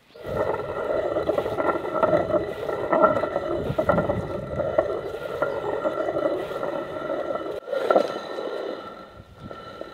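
Stone hand quern turning, the upper millstone grinding lumps of rock salt against the lower stone in a steady scraping grind. It drops out for a moment about three-quarters of the way through, then resumes and eases off near the end.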